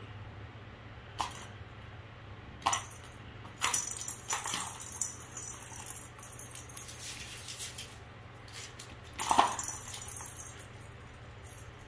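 Scattered sharp clicks and rattles of a cat's plastic track toy with a spring-mounted mouse as a cat plays at it, the loudest clatter about nine seconds in. A steady low hum lies underneath.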